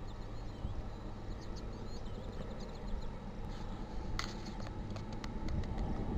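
Birds chirping briefly over a steady low rumble, then a run of sharp clicks from about four seconds in.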